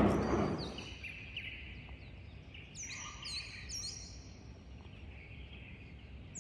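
A songbird calling: short, high chirps that slide downward, repeated several times with a quick cluster about three seconds in, over faint outdoor background. A hiss fades away in the first second.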